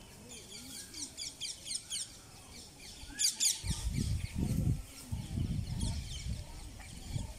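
Birds chirping in quick series of short, high, falling notes, loudest in a dense flurry about three seconds in. From the middle onward there is low rumbling noise underneath.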